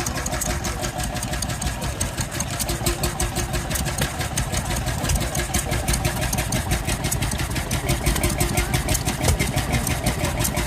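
Tangye Type M two-stroke stationary engine running steadily, with a fast, even beat of firing strokes.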